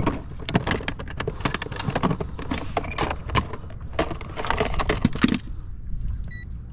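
Plastic tackle box being clicked open, with its contents rattling and clacking as a hand rummages through it. Then a single short electronic beep near the end.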